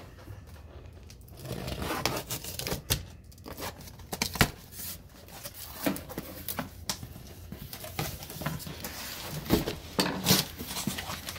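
Packing tape on a cardboard box being slit with a screwdriver tip and torn away, with irregular sharp rips and scratching, then the cardboard flaps being pulled open with crinkling near the end.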